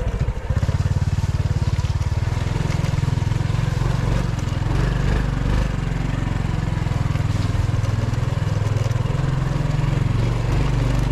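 Small motorcycle engine running steadily at low speed, a continuous low putter, heard from on the bike as it rides a rough dirt track.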